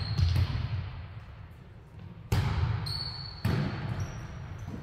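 Volleyball being struck during a rally: several sharp hits a second or so apart, each echoing through the gymnasium, with a few short squeaks of sneakers on the hardwood floor.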